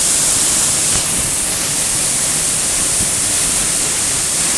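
Waterfall in spate after heavy rain: a steady, loud rush of falling water.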